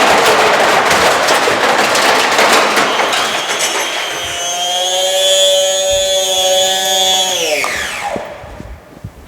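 Beko washing machine spinning hard and clattering loudly, its drum banging and rattling for the first few seconds. Then a steady high whine from the motor and drum takes over, and it falls in pitch about eight seconds in as the spin winds down. A few knocks follow as it stops.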